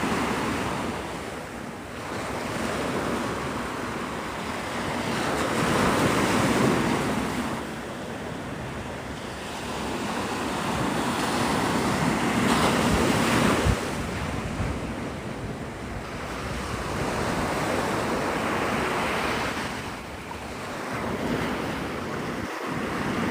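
Gulf of Mexico surf washing onto the beach, the rush of the waves swelling and fading every few seconds, with wind buffeting the microphone. A brief click about halfway through.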